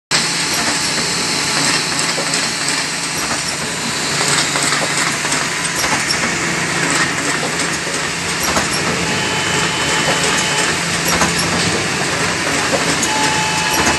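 Meccanotecnica Aster Kristec automatic book-sewing machine running in production: a steady, dense clatter of rapid mechanical clicks over a constant hum.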